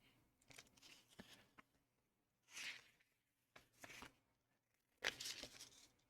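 Faint paper swishes and rustles of an instruction booklet's pages being turned, four or five times, with a few light clicks.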